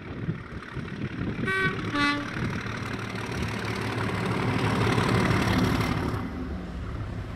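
Class 37 diesel locomotive giving two short blasts on its two-tone horn, high then low, followed by its English Electric engine running and growing louder as it approaches and passes close by.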